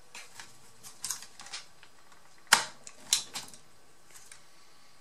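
A laptop's Seagate hard drive in its metal bracket being pried loose and lifted out of its drive bay: a handful of sharp clicks and light knocks of metal against plastic, the loudest about two and a half seconds in.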